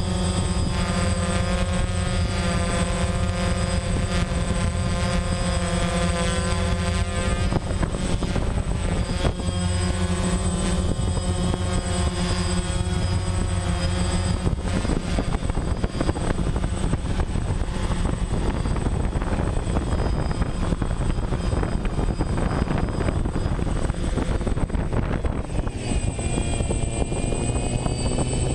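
DJI Phantom quadcopter's electric motors and propellers whirring steadily, heard close up through the camera it carries, as it hovers low and sets down on the grass.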